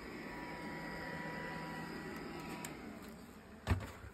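Electric bee smoker's fan motor whirring steadily with a thin whine, cutting off a little past halfway; about a second later, a single sharp knock as the smoker is set down on a wooden hive lid.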